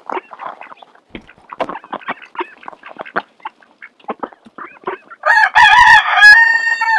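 Ducks dabble and peck soaked grain off the snow, a quick patter of small clicks and slurps. About five seconds in, a rooster crows loudly, its final note held to the end.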